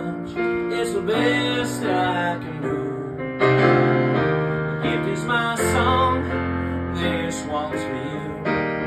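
Electric piano played live, chords changing every second or so, with a man's voice singing along.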